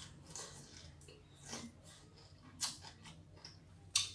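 A person eating soup with chopsticks: several short slurps and mouth smacks over chewing, the sharpest about four seconds in.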